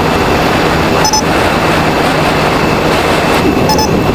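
Steady wind rush and road noise from riding a motorcycle in traffic. Two short, high double beeps sound about a second in and again near the end.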